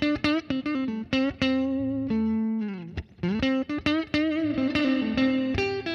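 Electric guitar playing a blues solo: a clean, directly recorded guitar run through a software reverb pedal into an amp simulator. Single picked notes with string bends and vibrato, and one bend falling away about two seconds in.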